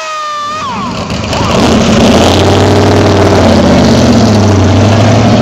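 A short electronic intro sound of gliding tones ends about a second in. Then a classic Chevrolet's engine runs loudly as the car pulls away, its deep note slowly rising and falling.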